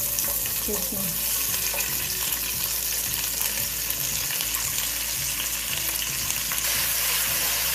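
Sliced red onions sizzling steadily as they fry in hot rapeseed oil.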